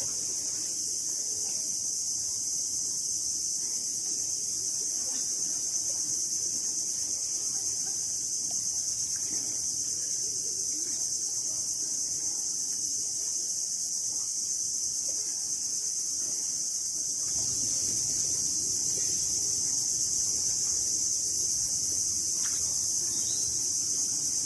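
Steady high-pitched chorus of insects shrilling without a break, with faint low noise beneath that grows a little louder about two-thirds of the way through.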